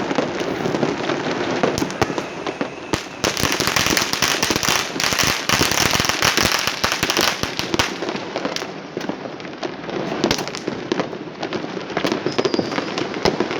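Fireworks and firecrackers going off all around, a dense run of bangs and crackling that is thickest from about three to eight seconds in.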